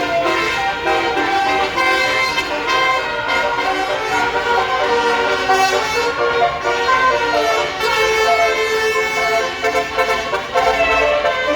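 Tour bus basuri air horn playing a telolet melody: loud, held horn notes that step from one pitch to the next.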